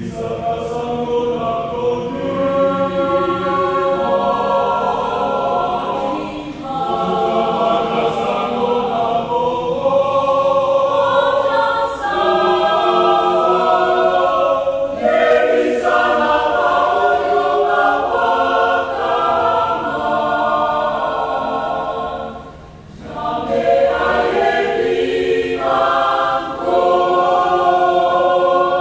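Mixed choir of men's and women's voices singing a hymn in harmony. It comes in at the start, and there are brief breaks between phrases about seven seconds in and again at about 23 seconds.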